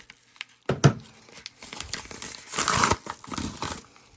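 Packaging being handled and torn open, with crinkling and rustling that is loudest a little under three seconds in. A single sharp knock comes just under a second in.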